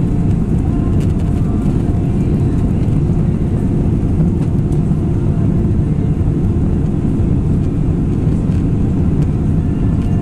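Steady cabin noise inside an Airbus A319 in flight during the descent: a low, even roar of engines and airflow, with a faint steady hum above it.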